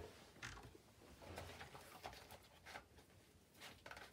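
Near silence: room tone with a few faint light taps on the desk.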